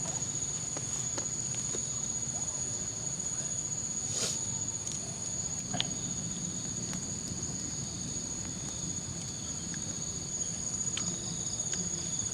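Night insects such as crickets trilling in a steady, continuous high-pitched chorus, with a few faint clicks and taps now and then.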